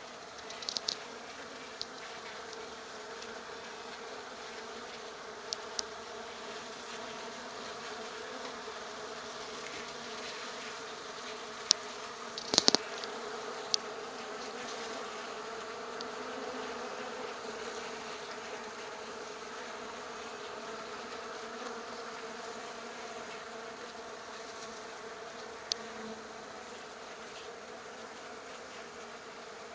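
Many honey bees flying and buzzing together, a steady droning hum. A few brief sharp clicks stand out against it, the loudest about twelve seconds in.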